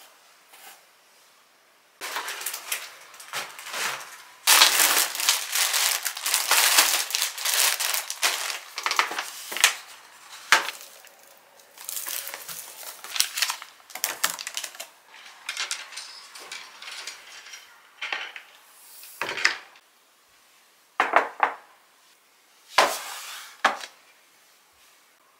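Plastic grocery bags and packaging crinkling and rustling as groceries are unpacked, mixed with clinks and knocks of a bottle and packs being set down on a glass table. It thins out toward the end into a few separate knocks and short rustles.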